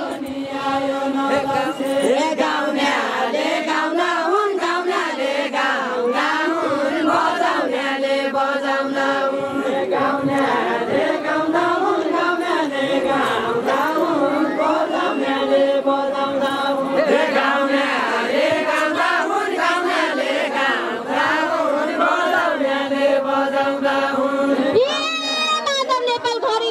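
A Deuda folk song of far-western Nepal: many voices chanting and singing together.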